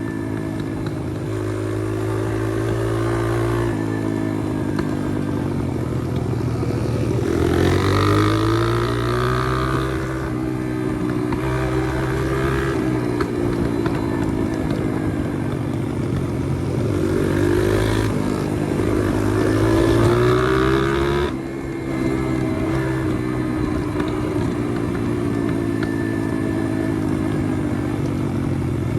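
Pit bike's single-cylinder four-stroke engine running under way, its pitch climbing as it revs up and falling back as the throttle comes off, several times over. The sound drops briefly about three-quarters through, then picks up again.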